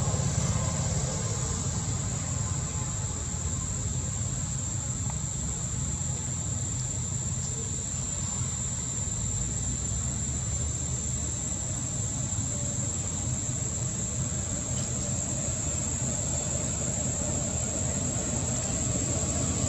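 Steady outdoor ambience: insects droning at a constant high pitch over a steady low rumble.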